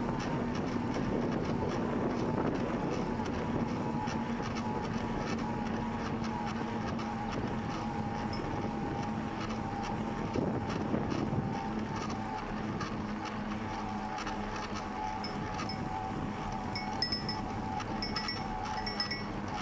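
Bicycle riding along a paved path: steady tyre-rolling and wind noise on a handlebar-mounted camera's microphone, with a few faint high clicks near the end.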